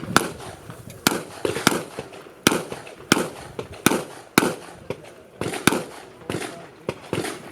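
Handgun shots fired rapidly during a practical-shooting stage, about a dozen in under eight seconds at uneven spacing, several in quick pairs (double taps).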